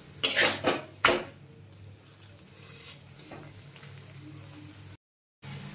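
A metal spatula scrapes against a metal pan twice in the first second and a half as a stuffed paratha is pressed and turned. After that there is a faint sizzle of the paratha shallow-frying in a little oil.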